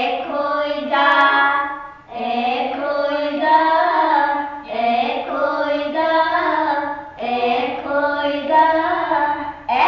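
A child's voice reciting in a sing-song chant: four long intoned lines, each with a short breath gap between them.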